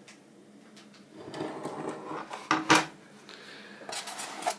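Cardboard box and foam packaging being handled: scraping and rustling that starts about a second in, with two sharp knocks about two and a half seconds in.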